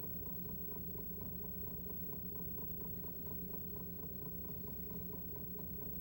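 Low steady electrical hum with faint, evenly spaced ticking about four times a second. This is the background noise of the capture, with no programme sound.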